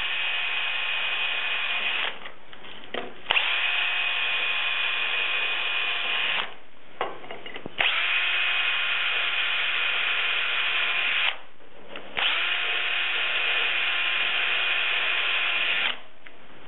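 Cordless drill with a 9/64-inch bit boring through a metal hinge plate into a kiln lid: four steady whining runs of three to four seconds each, with short pauses between holes.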